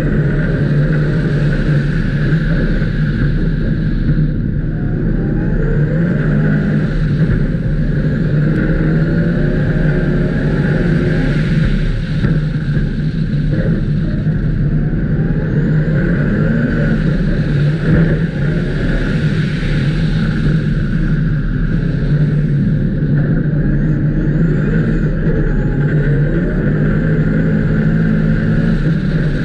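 Ice-racing car's engine running hard under load, its pitch rising and falling as the driver accelerates and lifts through the corners of an ice track, heard onboard.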